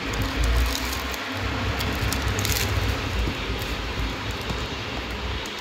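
Plastic bags and cardboard packaging rustling and crinkling as hands handle the contents of a box, with short crackles clustered about two seconds in, over a steady low rumble.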